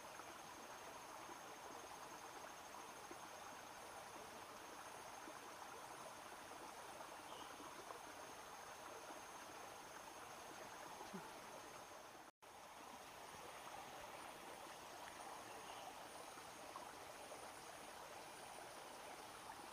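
Faint, steady hiss of a small forest stream's flowing water, with a thin steady high tone above it. The sound cuts out for a moment about twelve seconds in.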